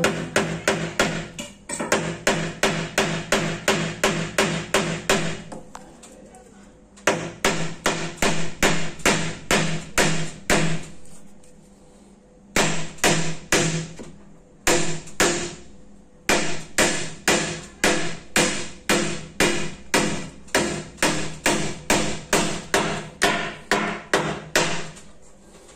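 Hammering on wood: steady sharp blows about three a second, in several runs with short pauses between.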